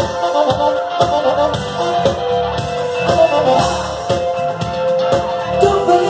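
Live rock band playing an instrumental stretch: electric guitar, bass and drum kit with a steady beat and held notes, no singing.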